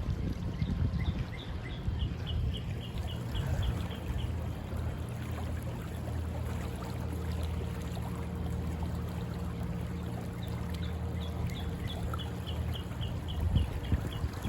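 River water running steadily, with a bird twice singing a quick run of short, evenly spaced high notes. A low steady hum sounds through the middle and later part.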